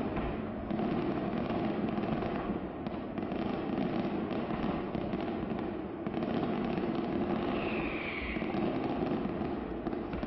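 Fireworks display: a continuous rattle of crackling bursts and bangs, with a short high whistle about eight seconds in.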